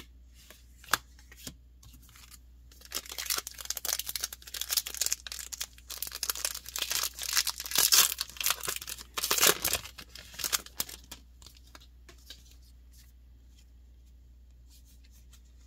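Foil booster pack wrapper being torn open and crinkled: a few sharp clicks, then several seconds of dense crackling and tearing that stops well before the end.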